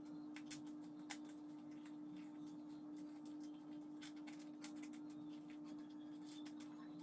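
Faint rustles and small clicks of a square of paper being folded and creased by hand, over a steady low hum.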